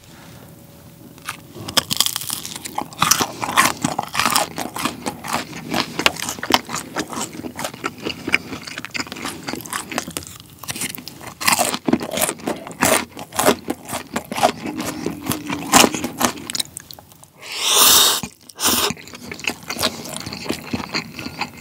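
Close-miked crunching and wet chewing of a sauce-dipped piece of tangsuyuk (Korean deep-fried sweet and sour pork), a dense, irregular run of crunches and mouth clicks. Near the end there is a short, louder breathy rush, then softer chewing.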